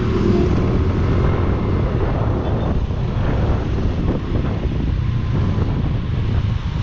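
Wind buffeting the microphone over the steady running of a small motor scooter and its road noise while riding.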